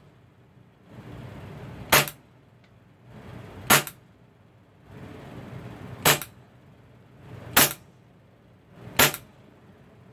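Gas blowback airsoft pistol running on MAPP gas, fired five single shots at uneven gaps of one and a half to two and a half seconds. Each shot is a sharp crack as the gas is released and the slide cycles.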